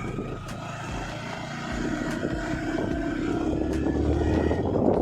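Yamaha R15 V3's 155 cc single-cylinder engine running steadily while being ridden on the road, its drone building a little in level toward the end.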